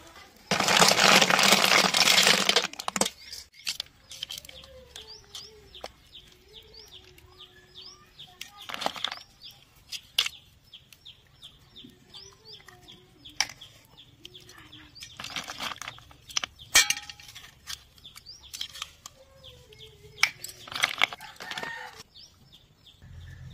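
Water pouring out of a pot of boiled snails onto the ground for a couple of seconds. Then chickens cluck and small birds chirp in the background, with occasional sharp clicks and rustles as the cooked snail shells are handled and opened.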